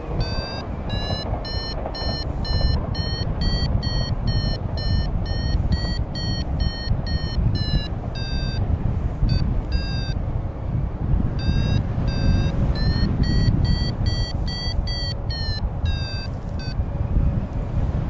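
Flight variometer beeping in quick short pulses, two or three a second, its pitch climbing and then sliding back down: the audio climb tone that signals the glider is rising in lift. The beeps stop for about two seconds around halfway, then start again, over wind rushing on the microphone.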